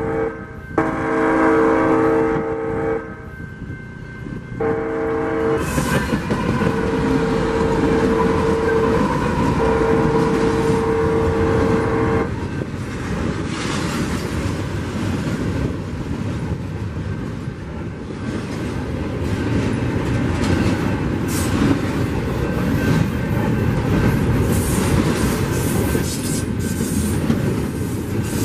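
A Union Pacific freight locomotive's air horn sounds a chord in the grade-crossing pattern: a long blast, a short one, then a long one held until about twelve seconds in, as the train rolls up to the crossing. After that come the steady rumble and clatter of a double-stack intermodal train's well cars rolling past over the crossing.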